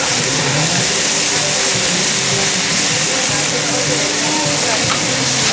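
Busy street-market ambience: a steady hubbub of mingled voices and background noise, with music playing over it.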